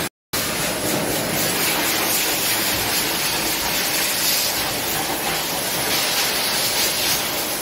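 High-velocity pet grooming dryer blowing air through its hose onto a wet dog's coat: a loud, steady rushing hiss, cut off for a moment just after the start.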